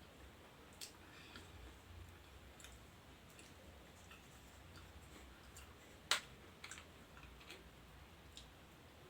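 Quiet eating sounds: a few small, sparse clicks and smacks, the sharpest about six seconds in, over a low steady room hum.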